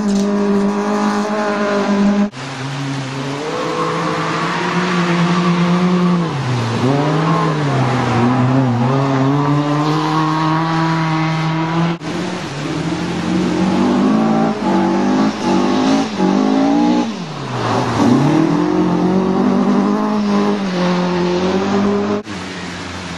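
Rally car engines running hard at high revs, their pitch dropping and climbing again with gear changes and lifts off the throttle. The sound cuts abruptly from one car to another three times.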